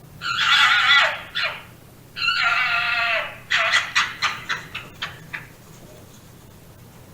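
Fox calling: two long, raspy screams with a short cry between them, then a quick run of about nine yelps, roughly five a second, that fade out about five and a half seconds in.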